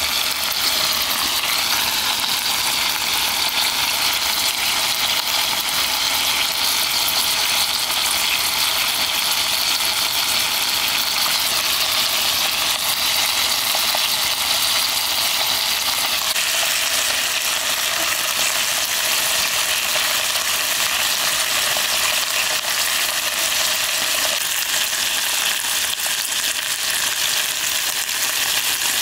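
Thin slices of meat sizzling steadily in hot oily broth in an aluminium camping pot.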